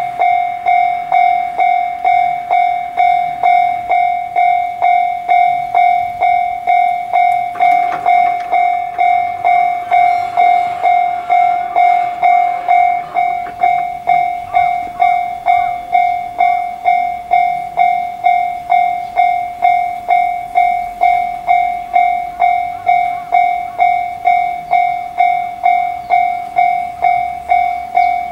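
Japanese railway level-crossing alarm cutting in and ringing steadily: a clanging electronic tone repeated about twice a second, the warning that a train is approaching. A faint rushing noise rises underneath about eight seconds in and fades a few seconds later.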